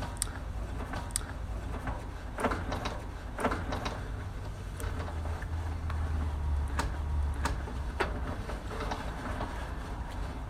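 Scattered clicks and knocks over a steady low hum as a sewer inspection camera's push cable is worked back and forth in the drain line.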